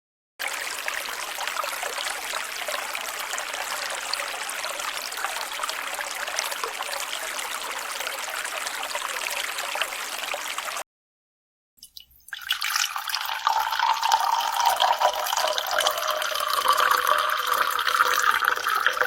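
Two water sound effects in a row: first a steady rush of running water that cuts off abruptly about eleven seconds in. After a moment of silence comes water pouring into a container, its ringing tone slowly rising.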